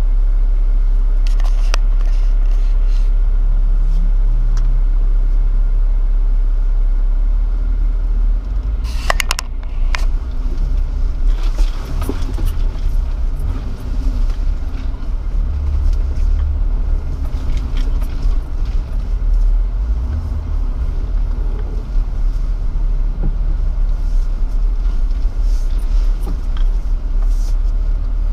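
Jeep driving a rough dirt trail, heard from a camera on its hood: a steady low rumble with scattered knocks and rattles as it goes over bumps, and a short burst of clatter about nine seconds in.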